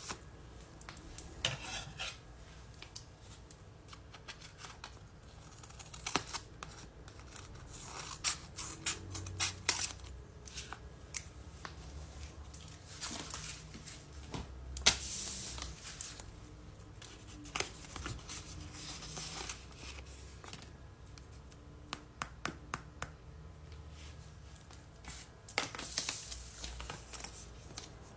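A paper squishy being handled: paper crinkling, rubbing and scratching, with scattered sharp clicks and snips at irregular intervals.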